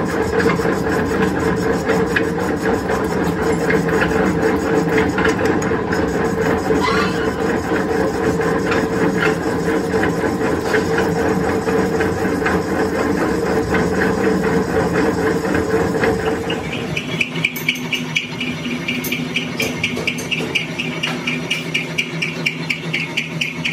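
Metal lathe running steadily with a constant mechanical hum as it turns a steel hydraulic-cylinder part. About seventeen seconds in the sound changes to a lighter cutting noise with a fast, even ticking as the boring tool cuts the inside of a steel tube, throwing off curled chips.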